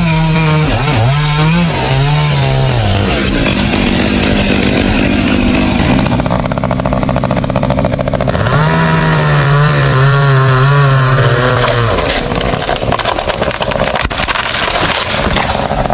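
Chainsaw engine running at high revs, its pitch dipping and rising in the first few seconds. It is revved up again about eight seconds in and held at full throttle until it drops away near twelve seconds.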